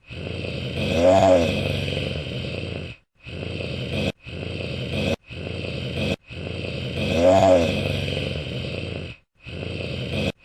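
Wolf growling in short sound-effect clips separated by abrupt cuts, with a pitched groan that rises and falls about a second in; the same clip repeats about six seconds later.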